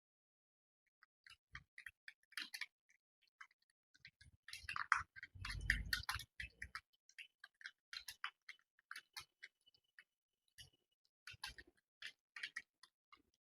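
ANT Esports computer keyboard being typed on: quick, irregular key clicks. A denser, louder run of keystrokes with low thuds comes about five to six seconds in.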